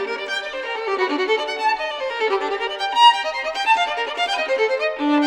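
Instrumental music: a single violin melody of quick, changing notes.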